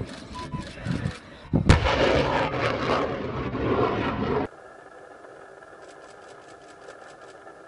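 HIMARS rocket launcher firing a rocket: a sharp blast about a second and a half in, then the rushing noise of the rocket motor. The noise cuts off abruptly after about four and a half seconds, leaving a faint steady tone.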